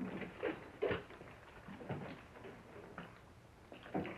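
Faint, irregular light knocks and scuffs of people moving about a room: footsteps and handling noise.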